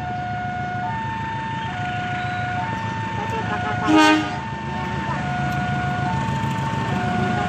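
A level-crossing warning alarm repeating a two-note ding-dong, each note lasting just under a second. About four seconds in, the approaching CC 201 diesel locomotive gives a short horn blast, the loudest sound.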